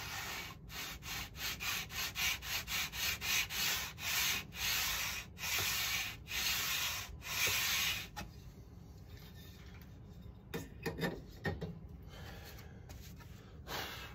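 Sanding block rubbing back and forth on the wooden sheeting of a model glider's wing, taking it down flush: quick short strokes, about three a second, then a few longer, slower strokes that stop about eight seconds in. A few light knocks and scrapes of handling follow.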